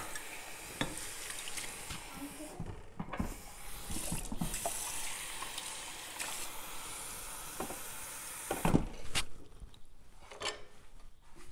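Kitchen tap running, a steady hiss that cuts off suddenly about nine seconds in, with scattered knocks and clinks of kitchen things.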